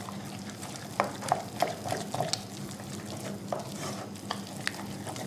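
Wooden spoon stirring a raw egg into thick choux pastry dough in a pot: irregular wet squelching with light clicks.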